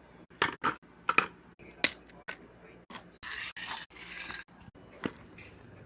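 Hard plastic toy parts being handled: several sharp clicks in the first two seconds and another about five seconds in, with two short rasping scrapes in between.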